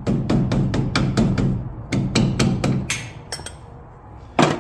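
Rapid hammer blows on steel suspension parts, about five strikes a second in two runs, then a pause and one single, louder blow near the end.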